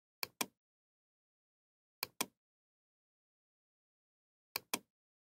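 Computer mouse clicks, three times, each a quick double click of button press and release, with dead silence between.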